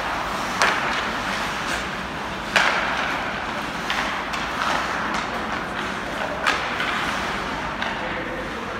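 Ice hockey play on a rink: skates scraping the ice over a steady rink hum, with a few sharp clacks of sticks and puck, the loudest about half a second, two and a half and six and a half seconds in.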